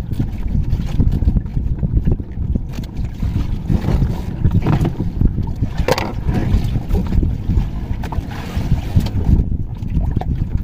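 Wind buffeting the microphone, a steady low rumble, with a couple of light knocks near the middle.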